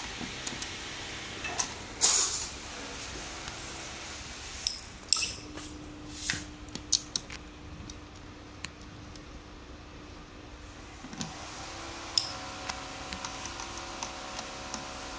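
Hands fitting the front mudguard and headlight brackets onto an e-bike's suspension fork: scattered clicks and light clinks of plastic and metal parts, with a short rustle about two seconds in. Near the end a screwdriver tightens the headlight bracket screw with a few small clicks.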